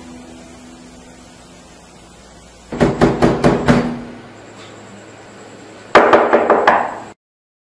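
A fist pounding hard on a door in two quick bursts of about five blows each, the first nearly three seconds in and the second about three seconds later. The sound cuts out abruptly just before the end.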